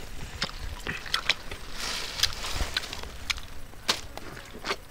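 Wild honeycomb being bitten and chewed: scattered sharp, wet clicks and smacks of the mouth working the sticky wax comb.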